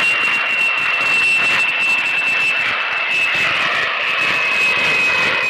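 Jet-airliner engine sound played from a toy aeroplane: a steady high whine that sinks very slightly, over a rushing hiss.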